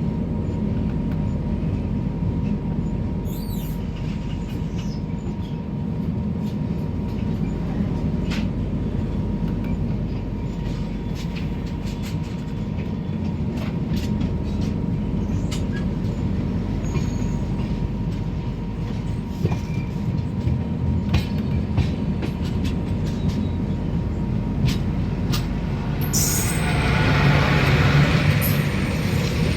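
Express passenger train running on the track: a steady low rumble with scattered sharp clicks of wheels over rail joints. About three-quarters of the way through, a louder hissing squeal rises for a few seconds.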